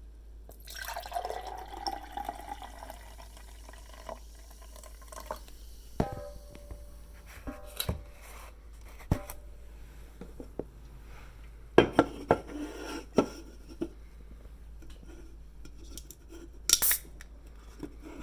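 Mountain Dew soda poured into a glass for about three seconds, then a string of sharp clinks and knocks as the glass and bottles are handled.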